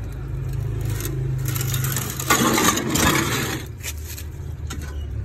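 A cover board sliding and scraping over the top of a fish tank for about a second, with a few light knocks of boards being handled. A steady low hum runs underneath.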